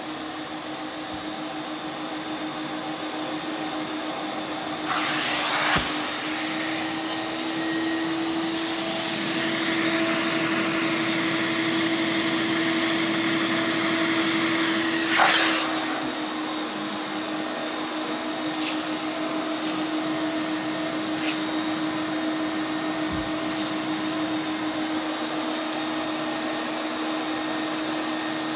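Carpet extraction machine's vacuum motor running with a steady hum. From about nine to fifteen seconds in, a water claw pressed into the carpet pulls water up from the padding with a louder rushing sound that ends in a sharp burst as the tool comes off; a shorter burst comes earlier, around five seconds in.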